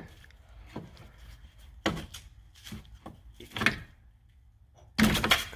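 Pliers wiggling and working a piece of sheet metal on a car's front end: scattered sharp metal clicks and knocks, then a louder clatter near the end.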